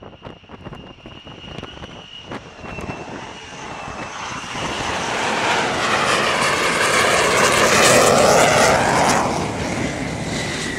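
F-35C Lightning II jet engine on a carrier landing approach. A thin high whine comes first, then the jet noise builds to its loudest about eight seconds in, with a sweeping, phasing hiss as the jet passes close, and eases off near the end.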